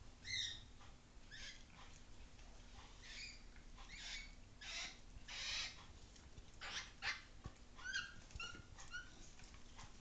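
Faint animal sounds from a dog, a cat and a pet crow: soft snuffling and rustling, with a few brief high squeaky calls, most of them in a quick run of short notes near the end.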